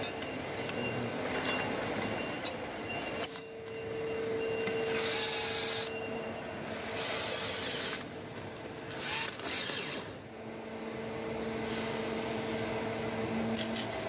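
Workbench handling of a metal electrical enclosure: gloved hands rubbing and scraping on the box and tools, with three short hissing scrapes, over a faint steady hum.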